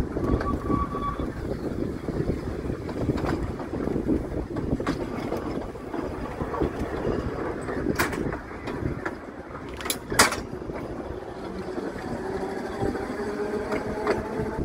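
Electric tram running along the rails: a steady rumble of wheels on track with clacks over the rail joints, a few sharp clicks about eight and ten seconds in, and a faint rising whine near the end.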